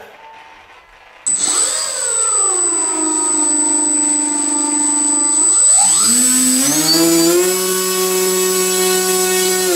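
Brushless electric motor and two-blade pusher propeller of an E-flite Opterra flying wing run up on the bench: it starts about a second in, settles at a steady speed, rises to a higher steady pitch about halfway through, and begins to spin down at the very end, with a thin steady high whine above it. A static thrust test; the motor pushes well.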